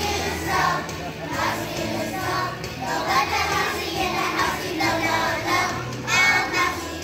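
Children's choir singing together, directed by a conductor.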